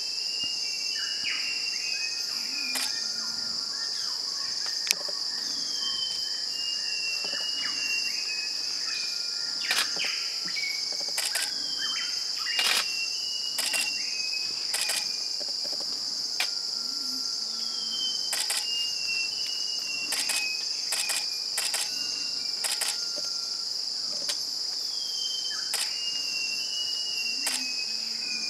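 Steady high-pitched drone of forest insects. Over it a bird gives short series of three or four descending notes every five to seven seconds. Sharp clicks are scattered throughout.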